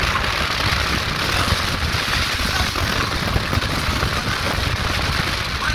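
Wind buffeting the microphone over steady road and vehicle noise, heard from the open back of a moving car.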